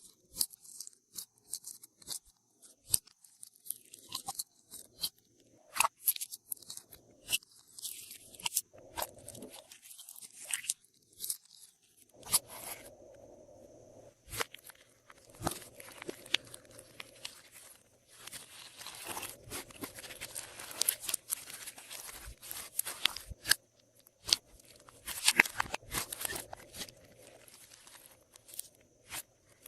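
Glossy slime being pressed and mixed by hand with things stirred into it: irregular sticky crackles, clicks and crunchy pops, coming thicker in stretches in the middle and near the end.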